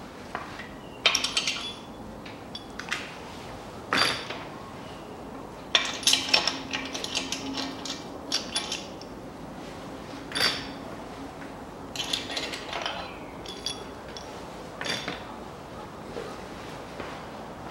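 Engine crankshaft main bearing caps and their bolts being pulled off the block and set down by hand: metal clinks and clatter in irregular bursts.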